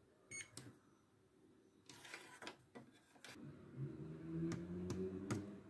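Multimeter probes clicking and tapping against components on a circuit board, with a short electronic beep near the start. A low hum comes in during the second half.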